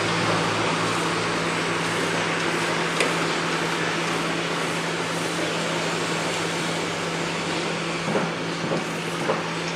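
Construction site noise: heavy machinery's engine running steadily under a general din, with a sharp knock about three seconds in and a few lighter knocks near the end.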